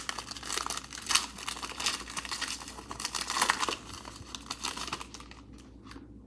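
A trading-card pack's wrapper being torn open and crumpled by hand: dense crinkling and tearing that dies down about five seconds in.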